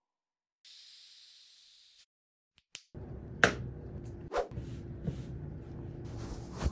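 A high hiss that fades over about a second and a half, set in dead silence. Then the room tone comes back with one loud, sharp click and a few softer knocks.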